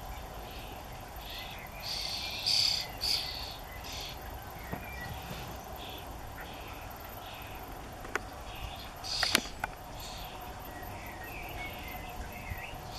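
Young starlings in a nest cavity giving harsh, hissing begging calls in short repeated bursts, loudest about two to three seconds in and again near nine seconds, with a few thin chirps in between.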